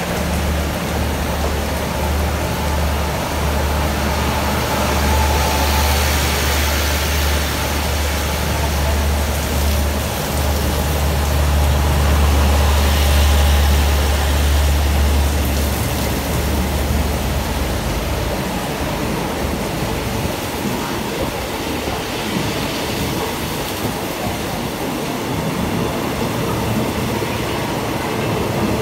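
Passenger train coaches rolling past close by as the train pulls out, with steady wheel and rail noise. A low diesel engine drone runs under it and fades out about two thirds of the way through, leaving only the rush of the wheels on the rails.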